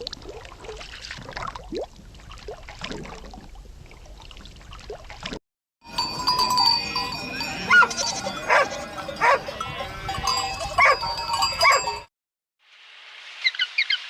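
Animal calls from two separate recordings, one after the other: a fainter one with scattered short calls, then after a sudden cut a louder one with many short calls over a few steady tones.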